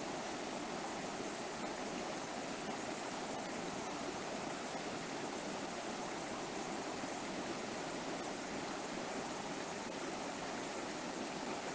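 River water flowing and rushing steadily over rocks, an even wash of sound with no breaks.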